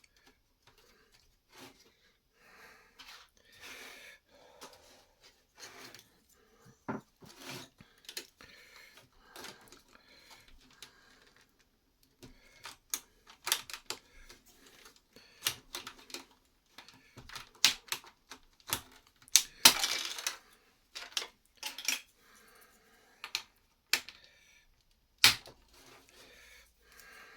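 Lego plastic bricks being handled and pressed together: irregular sharp clicks and light rattles, with a longer rattling scrape about twenty seconds in.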